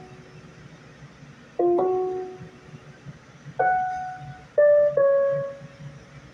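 Single notes played one at a time on a keyboard, about five in a slow melodic line. Each note is struck and then fades, two of them in a quick pair about two seconds in.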